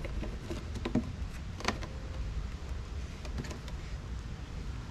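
A steady low background rumble with a few light clicks and knocks, ending in one sharp knock.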